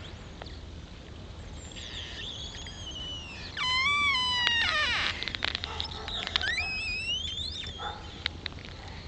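Ice creaking and singing: eerie whistling glides that slide down and up in pitch, mixed with sharp ticks and pings. The loudest is a falling pitched tone about three and a half seconds in, followed by rising glides.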